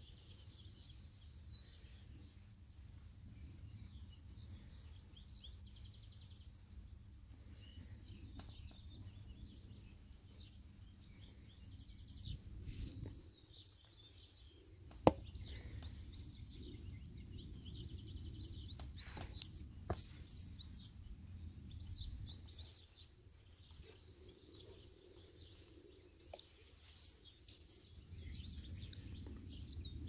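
Small birds chirping and singing off and on over a low outdoor rumble. There is a single sharp click about halfway through and a fainter one a few seconds later.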